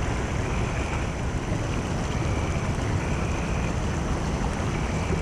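Steady low rumbling noise on the camera microphone, with frogs faintly chirping in short calls about every second.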